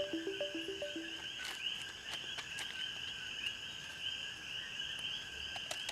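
Chorus of coquí frogs calling steadily, many overlapping short rising "kee" notes. A short plucked melody stops about a second in.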